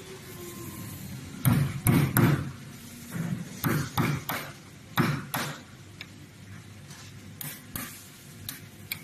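Hammer striking a chisel-like tool to knock off the excess material at the joints between table boards: about a dozen sharp knocks in quick pairs and threes, louder in the first half and fainter near the end.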